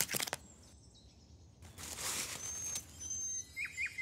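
Animated-film sound effects over a quiet meadow ambience. A few sharp clicks open it, a brief rushing whoosh with two short high whistles follows around the middle, and three or four quick falling chirps come near the end.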